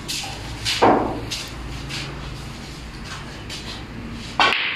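Snooker cue and balls knocking: two sharp clicks, one about a second in and a louder one near the end, with fainter clicks between.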